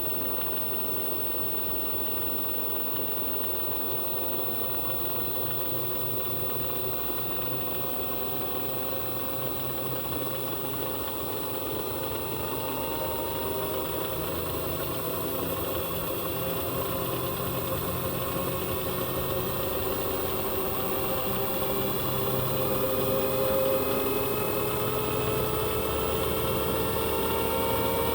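Panasonic NA-SD series drum washing machine running, its motor whine rising slowly and steadily in pitch and getting louder as the drum speeds up.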